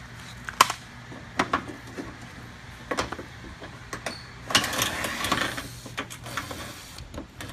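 Hand tools on the bumper's fasteners: scattered sharp metallic clicks, with about a second of denser rattling clicks about halfway through, over a faint steady low hum.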